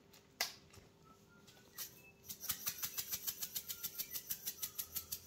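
A single sharp click, then about two seconds in a fast, even run of light clicking taps, about six a second, from kitchen utensils at work.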